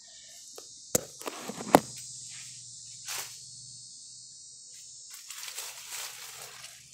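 Steady high insect drone with a faint low hum under it. About a second in come two sharp knocks of a phone being handled and set down, and a rustling follows near the end.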